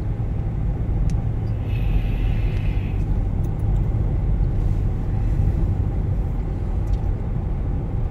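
Steady low rumble of a car driving on a rough, worn road, heard from inside the cabin: engine and tyre noise with no change in speed.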